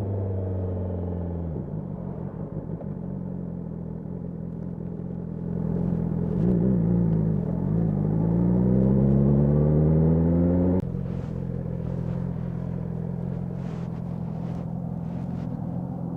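BMW S1000R's inline-four engine under way: the note steps down about a second and a half in, then climbs steadily in pitch and loudness under acceleration for a few seconds before dropping abruptly, after which it runs on at a steadier, lower note.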